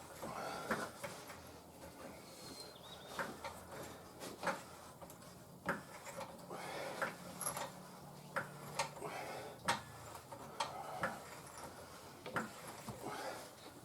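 Scattered sharp clicks and knocks of hand tools and metal parts being handled, at irregular intervals, with a faint low hum through the middle.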